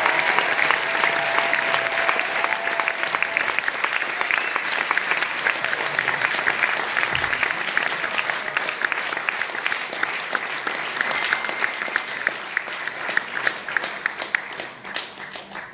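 Audience applauding, a dense patter of clapping that thins out and fades toward the end.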